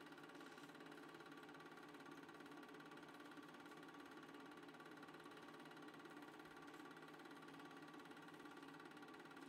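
Near silence: a faint, steady hum and hiss, with no other sound.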